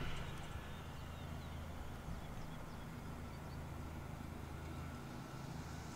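Faint, steady low drone of a running engine, the gardener's power equipment, with a few faint high chirps.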